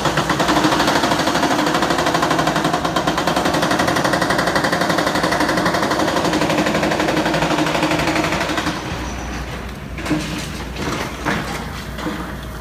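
Hydraulic breaker on a demolition excavator hammering concrete in a fast, steady rattle. About two-thirds of the way through the hammering stops, leaving a lower rumble and a couple of separate knocks.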